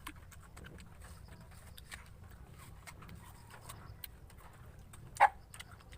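People eating apples fast: crunching bites and chewing, with scattered short clicks. A single sharp, loud sound comes about five seconds in.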